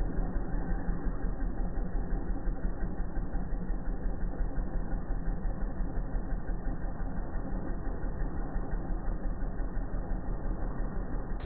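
Steady engine running sound with a fast, even pulse from a 1:7 scale RC Oshkosh HET model truck driving slowly.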